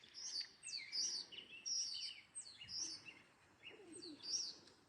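Songbirds chirping from a tree: a run of short, high chirps, each sweeping downward, about two a second, with a brief lull near the end.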